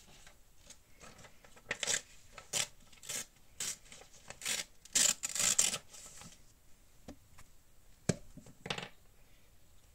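Paper handled and torn by hand: a run of short crackly rustles and rips, loudest about five seconds in, then a few light taps and knocks near the end.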